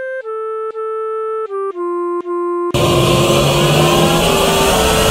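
Intro music: a slow melody of clear, pure single notes, then about halfway through a loud noisy wash cuts in suddenly beneath the held melody notes.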